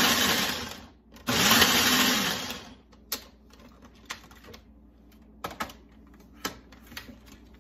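Small electric food processor, run by pressing down on its lid, chopping chunks of cooked roast beef in two pulses of about a second each, stopping for the first time about a second in. Afterwards a few plastic clicks and knocks as the lid is worked off the bowl.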